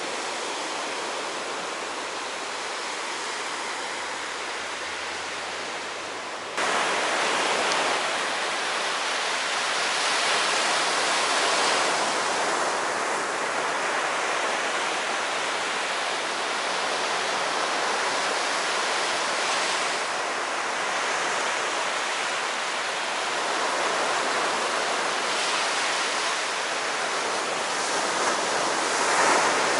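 Rough sea surf breaking and washing up on a sandy beach: a steady rush of water that swells and eases every few seconds. About six and a half seconds in it becomes suddenly louder and closer.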